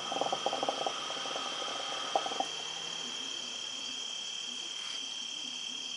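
Mya QT hookah bubbling as smoke is drawn through the water in its base, a rapid run of small bubbles for about two and a half seconds, then stopping. Crickets chirp steadily throughout.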